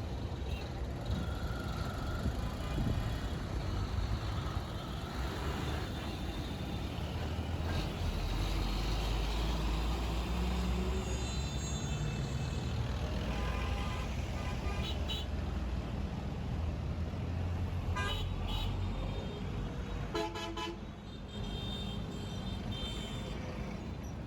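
Road traffic in a jam: vehicle engines running with a heavy vehicle's low rumble, and several vehicle horns honking in the second half.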